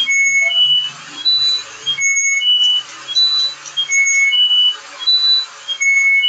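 An electronic beeper sounding a short rising three-note tune, repeated over and over about every two seconds.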